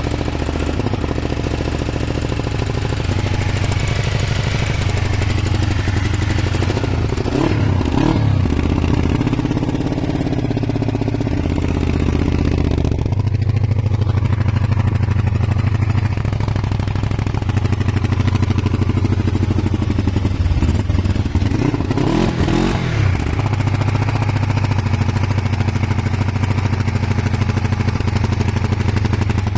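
Kawasaki ER500 parallel-twin engine idling, blipped up in revs and back down twice, about a quarter of the way in and again about three quarters through. The owner suspects a misfire and a broken head gasket.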